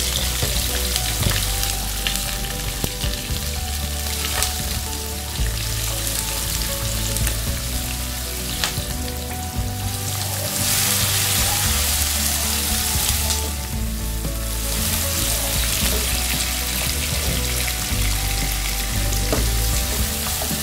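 Chopped onion sizzling in hot cooking oil in a non-stick kadhai, freshly added, with a wooden spatula stirring it and clicking and scraping against the pan now and then. The sizzle swells louder for a few seconds past the middle.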